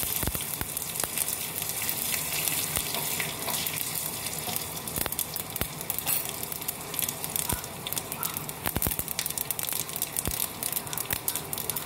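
Tadka of mustard seeds, green chillies and curry leaves sizzling in hot oil in a small aluminium pan, with scattered sharp crackling pops as the mustard seeds burst.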